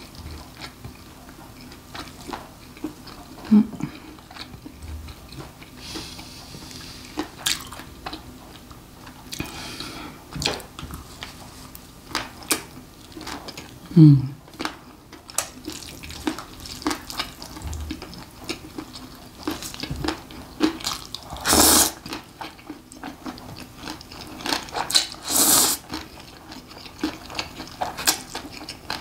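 Close-miked eating: wet chewing and mouth clicks as pork hock and noodles are eaten, with a short hummed 'mm' twice, and two louder slurps of noodles in the second half.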